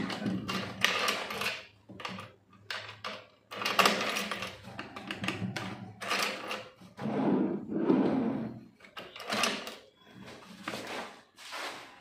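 Irregular clicks, knocks and scrapes as a key is turned in a hidden cabinet lock and hands handle the cabinet's laminated board top, testing the lock.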